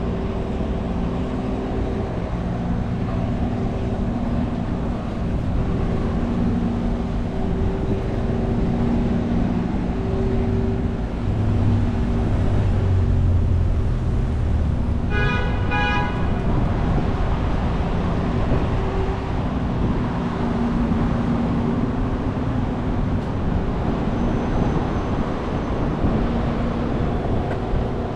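City street traffic, a steady rush of passing vehicles with engine hum. A little past halfway, something gives a short double beep, like a horn.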